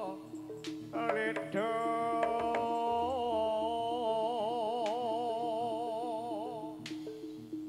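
Live jaranan music from an East Javanese gamelan ensemble: a melody line slides up about a second in and is held with a wide, wavering vibrato, breaking off near the end, over an even beat of struck percussion.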